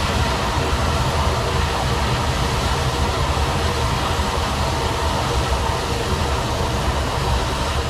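Man-made geyser erupting: water jetting high into the air with a steady rushing noise and a strong low rumble underneath.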